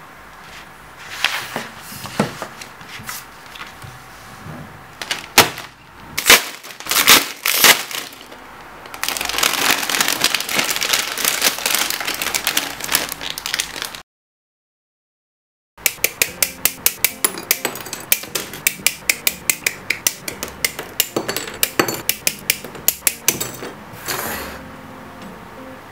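Paper rustling and sharp handling knocks, then a stretch of plastic bag crinkling as a plastic model kit's runners are taken out of their bag. After a sudden cut to silence, a fast, even series of sharp plastic clicks, about three a second, from parts being cut from the runners and snapped together in sped-up footage.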